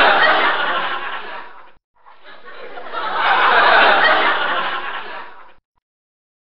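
Canned laughter, a laugh-track sound effect played twice in a row, each pass swelling up and fading away. It stops a little over five seconds in.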